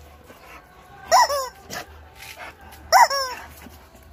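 Pit bull whining: two short, high-pitched cries about two seconds apart, each falling in pitch.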